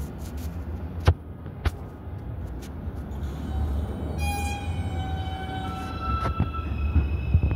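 Subway train on elevated tracks: a low rumble with two sharp metallic clanks early on, then from about halfway in a series of thin, high-pitched steady squeals from the wheels on the rails.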